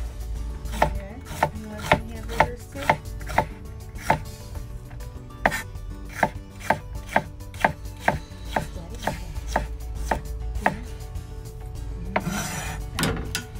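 Chef's knife slicing jalapeño peppers on a plastic cutting board, each cut ending in a sharp tap of the blade on the board, about twice a second. The cutting pauses briefly about four seconds in, and there is a short rustle near the end.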